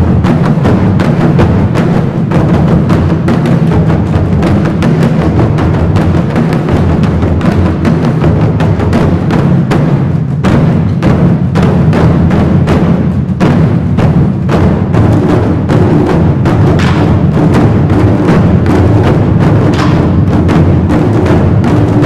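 A large ensemble of Chinese barrel drums struck with sticks, playing a loud, dense rhythm of many strokes together without a break.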